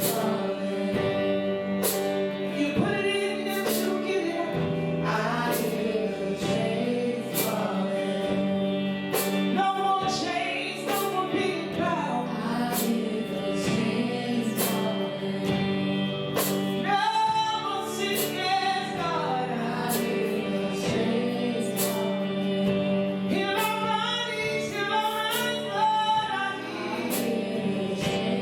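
Gospel worship music: voices singing over sustained chords, with a steady drum beat about once a second.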